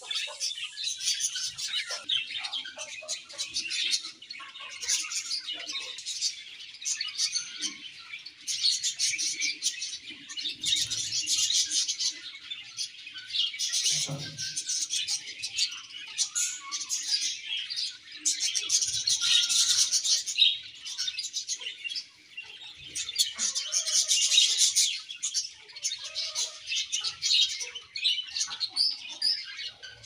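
A colony of budgerigars chirping and chattering all at once, a dense, continuous high twittering of many birds that swells and eases every few seconds.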